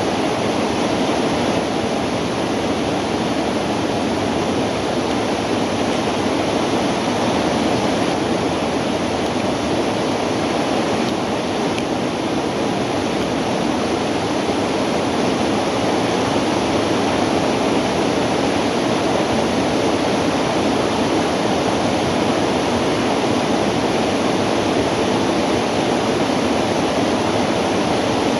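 Steady rushing of a shallow river flowing over a riffle.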